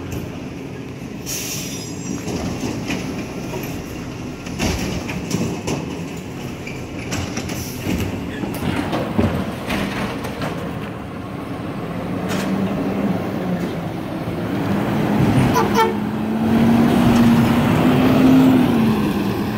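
Garbage truck working the street: scattered clanks and knocks over a steady rumble, then its diesel engine grows louder and rises slightly in pitch as the truck drives up and passes close by near the end.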